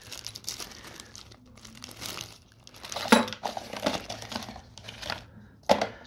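Clear plastic bag of screws and wall plugs crinkling irregularly as it is handled, loudest about three seconds in.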